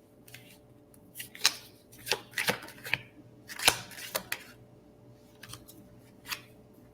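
Tarot cards being handled and shuffled: a run of irregular sharp snaps and flicks, the loudest a little past halfway.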